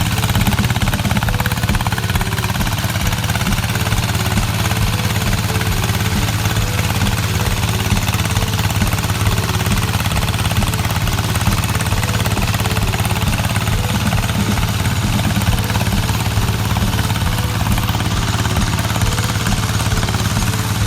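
Farm vehicle's engine running steadily, with a rapid, even chugging pulse.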